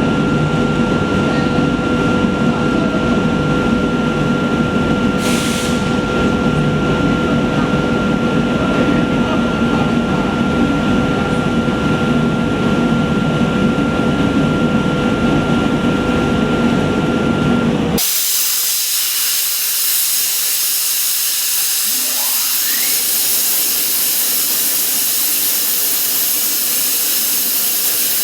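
CNC plasma cutting torch hissing steadily as it cuts steel pipe, with a steady whine over the hiss. About two-thirds of the way through the sound changes abruptly to a thinner, higher hiss, and a few seconds later a rising whine follows.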